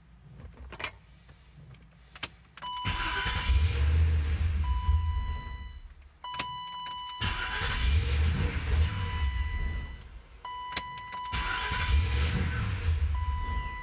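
A car's starter cranking the engine in three attempts of about three seconds each, the engine turning over but not catching: a no-start. A steady electronic warning tone sounds on and off, with clicks between the attempts.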